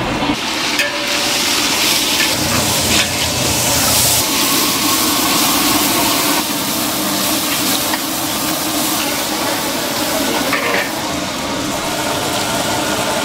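Chopped red chillies, shallots and garlic sizzling in a large metal wok while two metal spatulas stir and scrape them, with a steady hiss and occasional sharp clicks of metal on metal.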